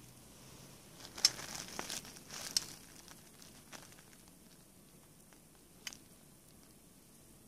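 Thin plastic sheet crinkling under a hand, in a flurry of sharp crackles a second or two in and one more crackle later.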